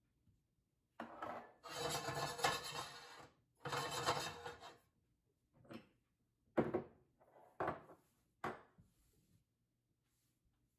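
Dried Sichuan peppercorns rattling and sliding across a dry ceramic nonstick frying pan as they go in and are shaken to toast: two longer rushes of noise starting about a second in, then four short shakes.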